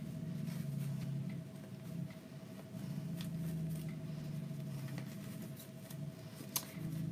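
Faint rustling and light clicks of ribbon loops being handled and fluffed out on a bow, over a steady low hum, with one sharper click near the end.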